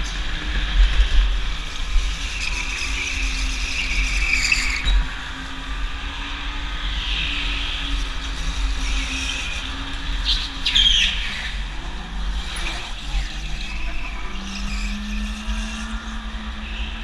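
Go-kart running hard through an indoor track, heard from onboard: a steady low rumble with a low motor hum that rises near the end. The tyres squeal briefly several times through the corners.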